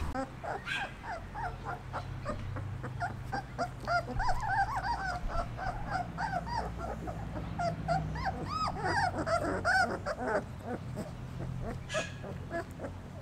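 Three-week-old German wirehaired pointer puppies whimpering and squeaking while nursing on their mother, many short rising-and-falling cries overlapping.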